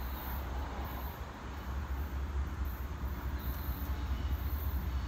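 Low, steady rumble of a distant diesel locomotive approaching the grade crossing, growing slightly louder toward the end.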